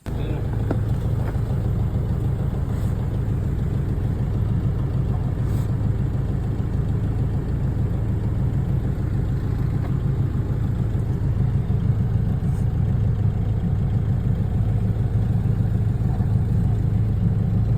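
An engine running steadily at an even idle, a low, constant hum with no change in speed.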